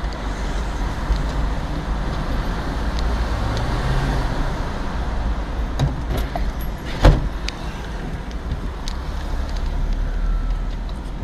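Steady engine and road rumble inside a moving car's cabin in city traffic. There is a single sharp thump about seven seconds in.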